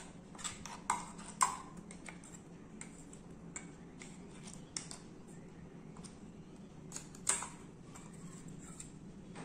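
A metal spoon scraping thick ground paste out of a steel mixer jar, with irregular clicks and taps of spoon on steel. The taps come thickest in the first two seconds, with one louder tap at about seven seconds.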